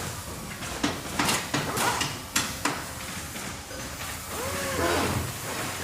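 Factory ambience: a steady mechanical background with a quick run of sharp metallic knocks and clanks in the first half, and a short squealing, wavering tone near the end.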